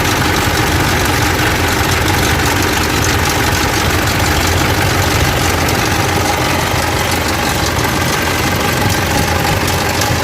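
Mitsubishi 3.2 DI-D four-cylinder common-rail diesel idling steadily, with a timing-chain noise coming from the front of the engine, diagnosed as a failing timing chain that needs the chain kit replaced.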